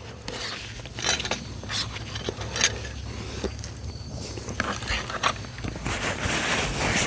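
Scattered light clicks and scrapes of food and utensils being handled while eating, over a low steady hum. A soft hiss builds near the end.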